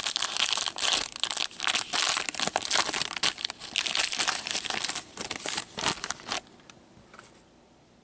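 Plastic trading-card pack wrapper being torn open and crinkled close to the microphone, a dense crackling that stops about six and a half seconds in.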